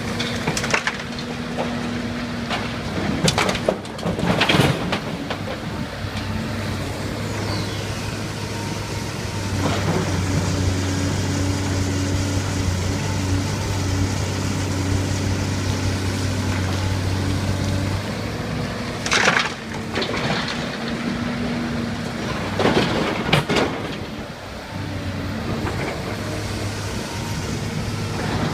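LiuGong 925D excavator's diesel engine running steadily under hydraulic load, its level shifting as the machine works, with several short, loud scraping crunches from the bucket working soil.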